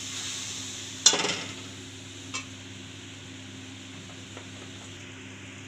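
Metal spatula stirring cluster beans and watery masala in a metal kadhai, with a sharp clank about a second in as it knocks the pan and a lighter click a little later, over a steady hiss of the pan heating on a high gas flame to come to the boil.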